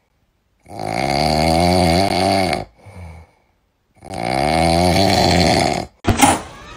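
Loud, slow snoring: two long snores with a wavering pitch, each about two seconds, with a short faint breath after each. Near the end a sudden sharp knock cuts in, followed by quiet music.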